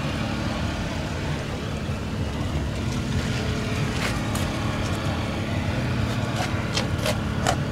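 Engine running steadily with a low rumble and hum, and a few light clicks in the last few seconds.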